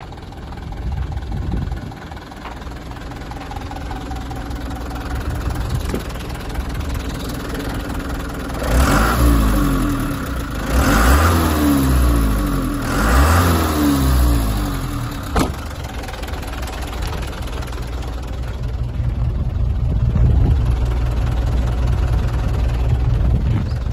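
Mitsubishi 4D35 four-cylinder diesel of a 1995 Canter truck idling, revved three times in quick succession around the middle, each rev rising and falling back to idle. A single sharp click a little after the revs.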